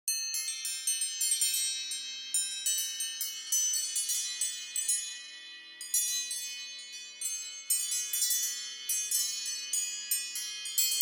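iPhone ringtone made of high, bell-like chime notes struck in quick, overlapping succession, each ringing on, like a wind chime.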